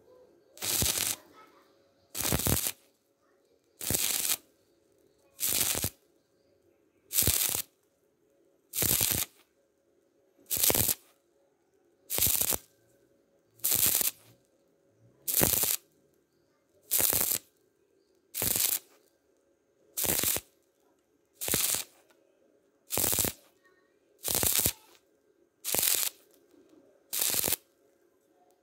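Stick welding arc on thin square pipe, crackling in short half-second bursts about every second and a half, struck and broken again and again in a stitch-welding rhythm.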